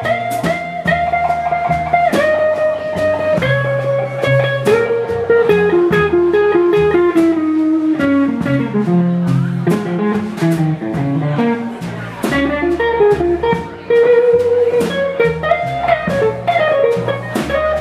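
Live blues band: an electric guitar plays a lead solo of held, bending notes over upright bass and drums, with regular sharp drum and cymbal hits.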